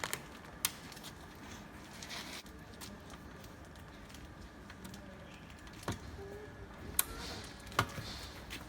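A few sharp clicks and taps from hands and tools working on a welding machine's power switch, over a low steady hiss.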